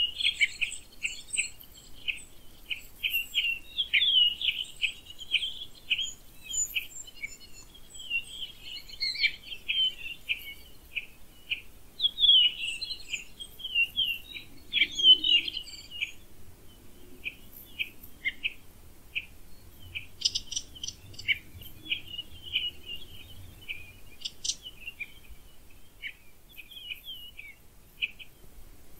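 Birds singing, a rapid run of short chirps and trills that is busy through the first half and thins out in the second half.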